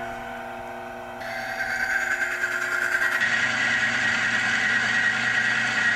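Benchtop friction wear-testing machine running: its electric motor spins a steel wheel coated in Squirt wax-emulsion chain lube against a loaded steel test cylinder. About a second in it grows louder, with a steady metallic rubbing and a high whine from the cylinder grinding on the wheel.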